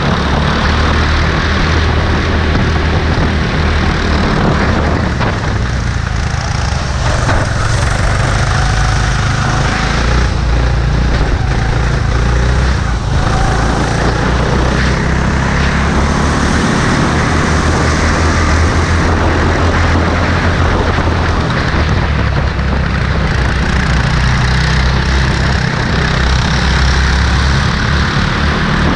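A go-kart engine running hard at racing speed, heard from on board, with other karts close ahead. The engine note dips briefly twice, around five and thirteen seconds in.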